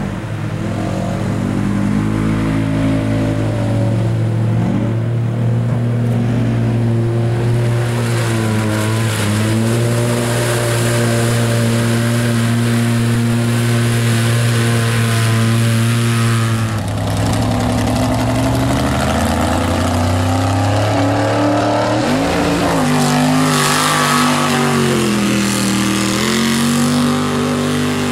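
Engines running hard and revving in a mud bog: first a side-by-side UTV churning through the mud pit, then, about two-thirds of the way through, a pickup mud truck revving in deep mud.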